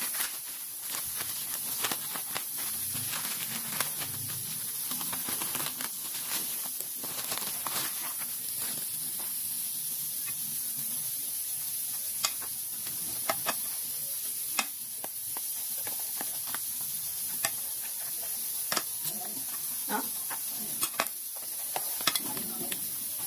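Plastic shipping bag rustling and crinkling as it is opened by hand, then a cardboard box being opened and handled. Scattered sharp clicks and taps over a steady hiss.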